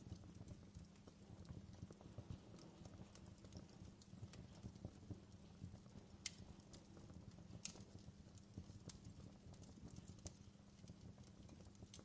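Wood fire burning and crackling faintly: a low rumble with irregular sharp pops and snaps, two louder pops a little past the middle.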